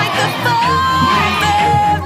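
Music with a held, gliding melody line over a steady low bass.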